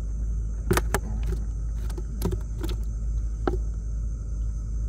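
Steady low hum of a small boat engine running, with about six short clicks and knocks as fish are handled into a container.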